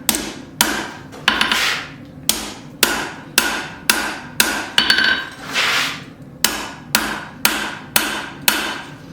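Blacksmith's hammer striking hot square steel bar stock on an anvil, about two blows a second with a short ring after each, with a brief pause a little past the middle. The stock is being drawn out and thinned, taking out an upset.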